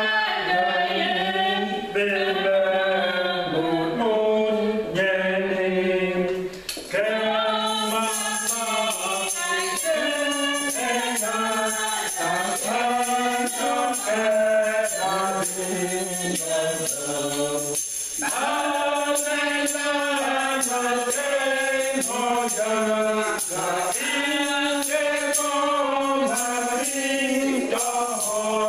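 Congregation singing a Cameroonian hymn together. About seven seconds in, a steady jingling percussion joins the singing.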